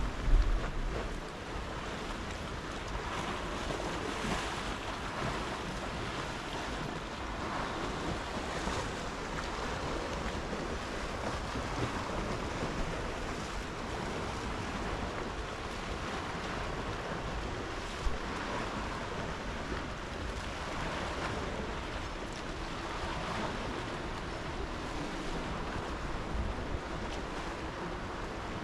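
Sea waves lapping and splashing against a concrete shoreline, swelling and easing every few seconds. Wind buffets the microphone in the first second, and there is a single short knock about two-thirds of the way through.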